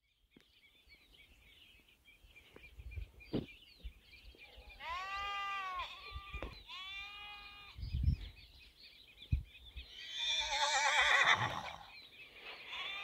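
Farm livestock bleating: two short rising-and-falling calls about midway, then a louder, quavering call near the end, over a steady twittering of small birds.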